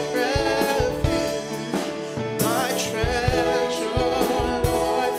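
Live gospel worship song: a woman and a man singing over a Yamaha MO6 keyboard playing held chords, with short low thumps keeping the beat.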